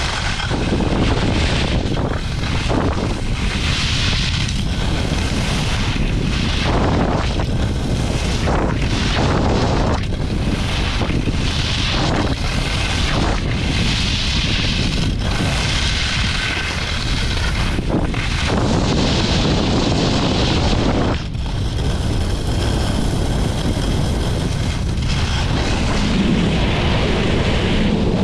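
Wind buffeting the microphone over the hiss and scrape of Fels V7 Carbon 76 mm skis carving on groomed snow. The snow hiss surges with each turn, about every two seconds.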